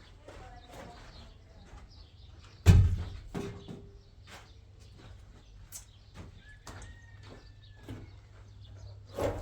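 Scattered knocks and clatter over a steady low hum, with a loud thump about three seconds in and another near the end.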